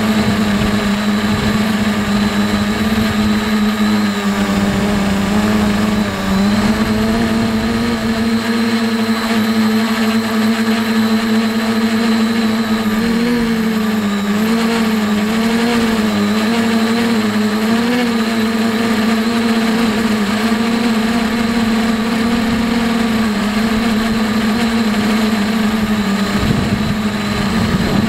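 An H-frame quadcopter's motors and propellers, heard close up from its onboard camera: a loud, steady hum with overtones. In the middle its pitch wavers up and down as the motor speed changes with the throttle.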